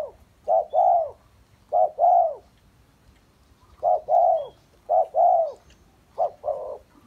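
Caged decoy dove of the small-voiced class cooing about five times, each phrase a short note followed by a longer arched coo, with pauses between. It is a new bird, cooing on its own within minutes of arriving, which the owner takes as a good, passing call.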